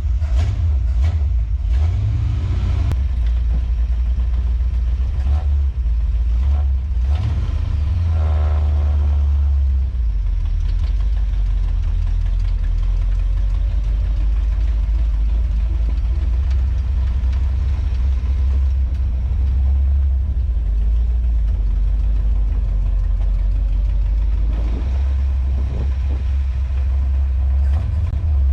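A 1967 Ford Mustang fastback's engine running with a steady, deep low rumble.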